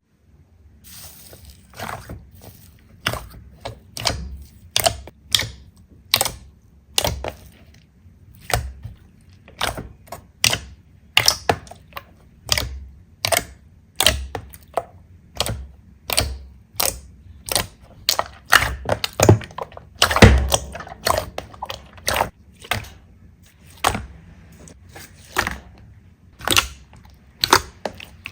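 Slime being squeezed and pressed by hand, giving sharp clicking pops again and again, irregularly about one or two a second, with the loudest pops about two-thirds of the way through.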